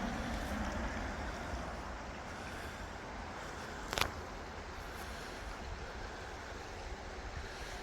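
Stream water rushing steadily, with wind rumbling on the microphone and a single sharp click about four seconds in.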